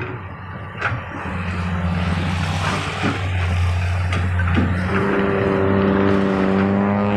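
Komatsu PC200 hydraulic excavator's diesel engine running steadily as the boom and bucket work, with a couple of short knocks. About five seconds in, a steady droning tone with many overtones joins the engine sound and holds.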